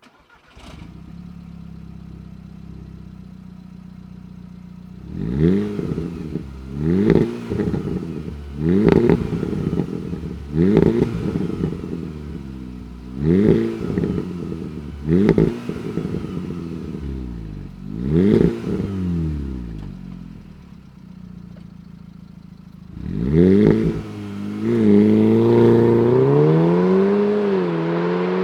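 A stock Audi TTS's 2.0-litre turbocharged four-cylinder engine idles, then is blipped about eight times in quick succession, each rev rising sharply and dropping back to idle. After a short idle it is revved twice more, then held at higher revs with the pitch drifting up and down.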